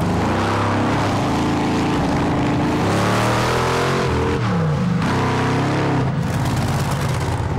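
Monster truck's supercharged 1,700-horsepower dragster engine running loudly, its revs rising and falling a few times.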